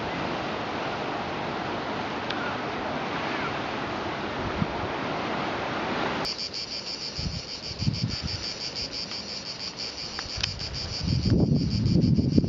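A steady rushing of wind and distant surf cuts off abruptly about six seconds in. A chorus of cicadas takes over, a high buzz pulsing fast and evenly, with wind gusting on the microphone near the end.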